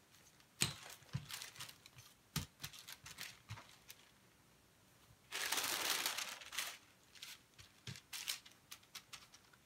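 Parchment paper rustling and crinkling as it is handled and the top sheet is peeled off a rolled-out ground-chicken pizza crust, with the loudest crinkle lasting just over a second about halfway through. Scattered light taps and knocks around it.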